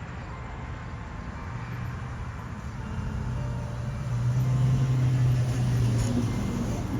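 A motor vehicle passing: a low engine drone builds from about a second and a half in, is loudest past the middle, and fades near the end.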